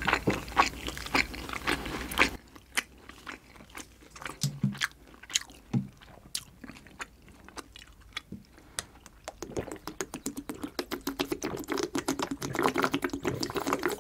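Close-miked chewing of a soft dumpling, with wet mouth clicks. Then, in the second half, drinking from a plastic bottle in a long steady run of swallowing gulps.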